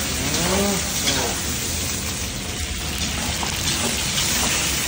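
Meat and onion rings frying in hot oil in a kazan, a steady sizzle as they are stirred.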